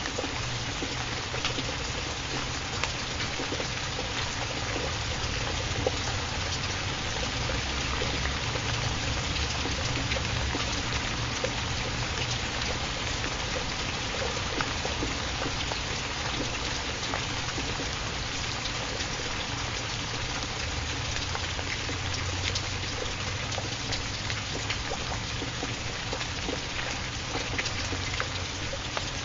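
Steady rain falling, with a dense hiss and scattered small drop ticks over a low steady rumble.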